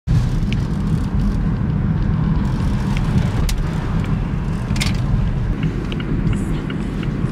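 Steady road and engine rumble inside a moving car's cabin, with a few faint clicks.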